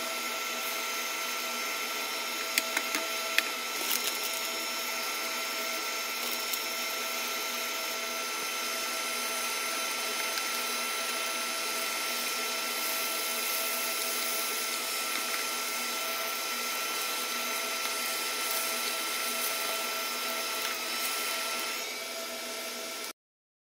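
Egg and cheese omelette frying in hot oil in a pan: a steady sizzle with a steady whine of several tones beneath it. A few sharp clicks come about three seconds in, and the sound drops a little near the end, then cuts off suddenly.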